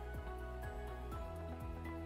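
Background music: sustained chords over a steady beat, about two beats a second.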